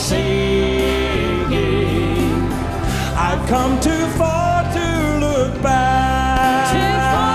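Live gospel worship music: voices singing and holding long notes over piano and a steady bass line.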